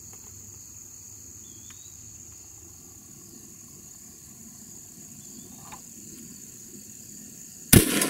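Steady high-pitched insect chirring, then near the end a single loud blast from a Beretta 1301 Tactical 12-gauge shotgun firing a 3-inch number 5 turkey load through a full choke.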